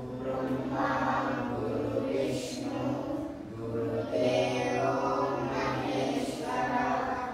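A group of voices chanting a prayer in unison, in short phrases with brief pauses, over a steady low hum.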